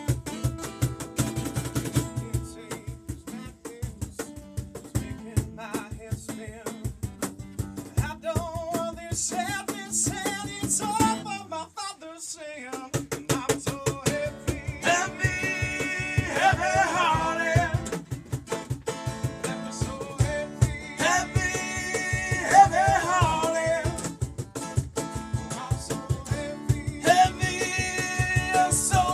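Acoustic band playing a song live: rhythmic strummed acoustic guitar with a singing voice. The playing drops out briefly about twelve seconds in, then picks up again under the vocals.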